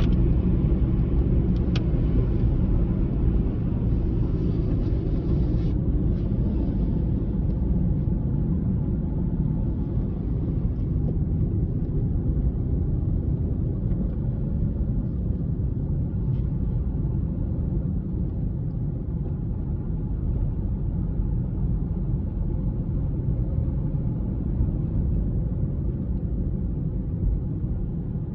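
A car driving, with a steady low rumble of engine and road noise; a brighter hiss rides over it for the first six seconds or so and then falls away.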